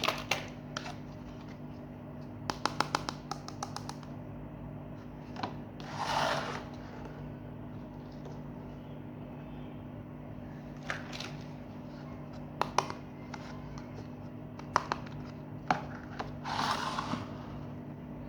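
Small plastic toy kitchen pieces being handled: scattered clicks and taps, a quick run of clicks about two and a half seconds in, and two short rustling scrapes about six and seventeen seconds in, over a steady low hum.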